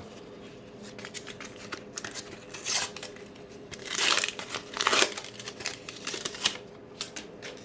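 A Panini sticker pack's wrapper being torn open and crinkled by hand, a run of irregular crackles and rips, loudest about four seconds in.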